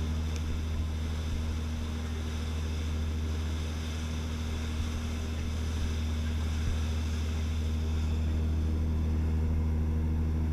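A passenger boat's engine running with a steady low hum, under the rush of water churning along the hull.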